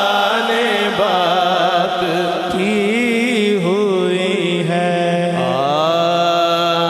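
Male voice singing a naat (Islamic devotional song in Punjabi and Urdu) in long, ornamented lines with a wavering pitch. About two-thirds of the way in, steady held notes join underneath.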